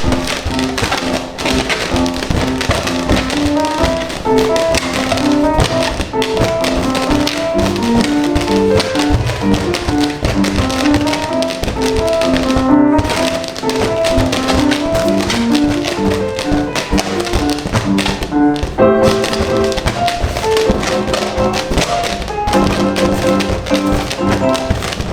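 Background music: a bright melody of short notes over a fast tapping beat, with a brief break about 13 seconds in and another about 19 seconds in.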